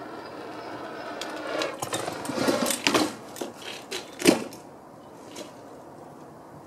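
BMX bike rolling in over concrete with a quick run of clicks and rattles, then a single loud sharp impact a little after four seconds in as it lands from a jump down the steps, followed by a few lighter knocks.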